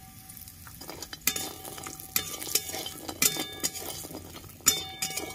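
A flat metal spatula scrapes and knocks against a metal kadai about six times, the pan ringing briefly after several strokes, as bori (sun-dried lentil dumplings) are stirred while frying in a little oil. A light sizzle of frying runs underneath.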